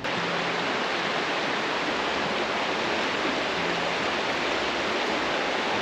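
Steady, even rush of flowing river water, starting abruptly.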